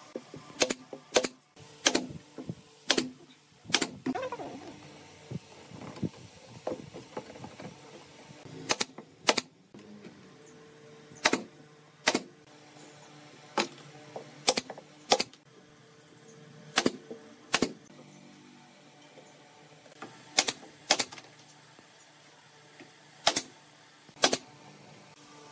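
Pneumatic nail gun driving nails into pine pallet-wood boards: sharp shots, singly and in quick pairs, about eighteen in all, with pauses between them.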